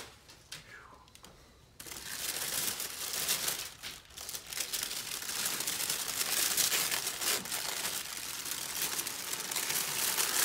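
Plastic wrapping crinkling and rustling as it is pulled off a large resin statue base, starting about two seconds in and going on continuously.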